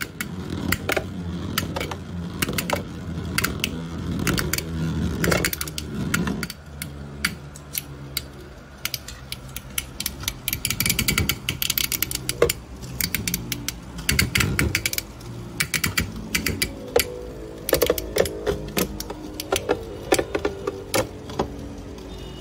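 Two Beyblade Burst spinning tops, Valtryek and Fafnir, whirring in a plastic Beyblade stadium, with frequent sharp clacks as they collide and scrape against each other.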